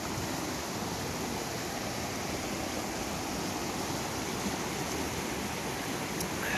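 A small mountain river rushing over boulders in whitewater rapids, a steady, even noise of fast-flowing water.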